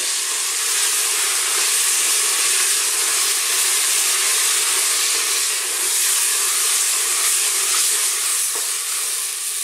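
Chopped tomatoes, onion and whole spices frying in hot oil in a stainless steel pressure cooker pot, a steady sizzle as they are stirred with a wooden spoon.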